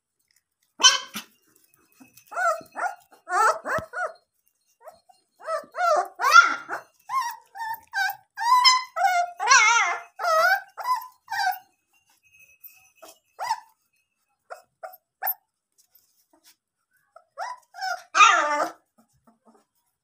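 Puppies yapping and whining in many short, high calls as they play-fight, dense through the first half, then a few scattered yaps and a loud burst near the end.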